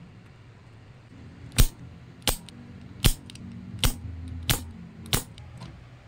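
Six sharp clicks about two-thirds of a second apart, over a faint low hum.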